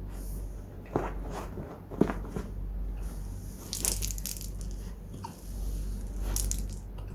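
Corgi hiccuping: sharp, sudden hiccups about a second in and again a second later, with crisp clicking noises near the middle and near the end.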